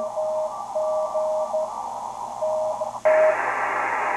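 Drake TR-4CW tube transceiver receiving Morse code on the 40 m CW band through its 500 Hz filter: a steady beeping tone keyed in dots and dashes over band hiss, with a fainter second signal higher up. About three seconds in, the hiss suddenly becomes louder and fuller.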